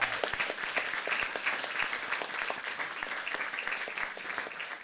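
Audience applauding, a dense crowd of clapping hands that thins slightly toward the end.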